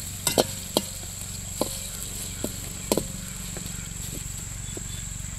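A ladle knocking and scraping in a kadai as ginger-garlic paste is stirred in hot oil: several sharp knocks, most in the first three seconds, over a steady high hiss.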